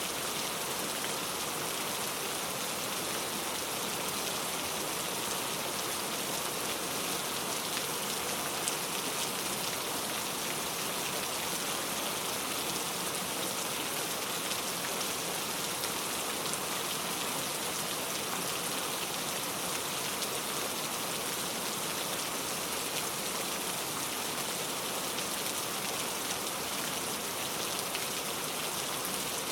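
Steady rain falling, with a dense patter of drops on a surface and no thunder.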